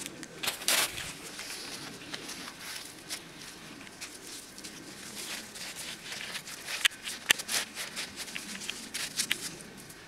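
Snow crunching in irregular scrapes and crunches, with the sharpest ones just under a second in and again around the middle and latter part.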